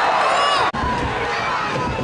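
Stadium crowd cheering, which breaks off abruptly less than a second in, followed by lower crowd noise with scattered shouts.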